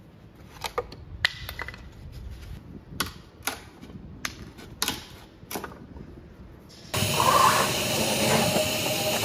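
Plywood panels knocking and clattering as they are handled, a series of sharp separate knocks, then a cordless drill runs steadily for about two seconds near the end, louder than the knocks.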